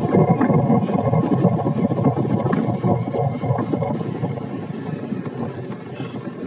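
Wind rushing and buffeting over the microphone of a moving motorbike, with the bike's engine running underneath. The rush grows steadily quieter through the second half.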